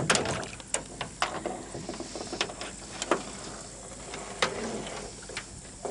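Irregular knocks, clicks and scrapes from handling in a small boat, with a few louder knocks scattered through.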